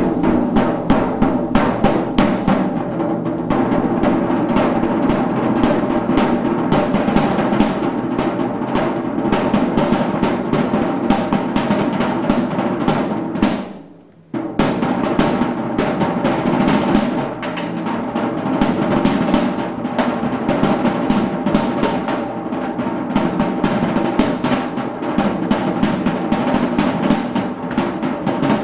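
Fast, dense drumming with a steady droning tone beneath it; it drops away briefly about halfway through and then starts again.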